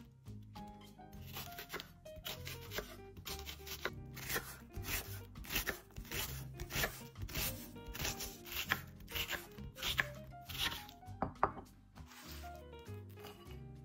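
A knife chopping food on a cutting board, at about two cuts a second with small pauses, over soft background music. The cuts thin out near the end.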